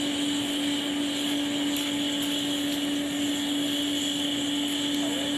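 Electric air blower running steadily on a furnace that is melting metal for casting: a constant motor hum with a high whine over the rush of forced air.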